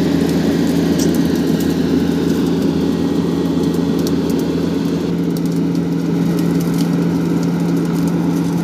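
Asphalt paver's diesel engine running steadily as the machine crawls slowly over a heap of loosened soil, with scattered light clicks and crackles.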